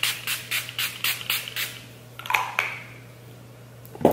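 e.l.f. hydrating setting spray pump bottle misting the face in a fast run of short spritzes, about five a second, stopping after under two seconds. A short clack follows, and near the end a sharp thump, the loudest sound.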